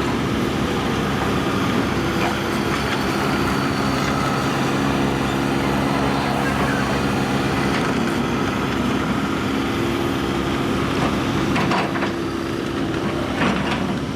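Diesel engine of a John Deere 160G excavator running steadily under operation, with a few sharp knocks near the end.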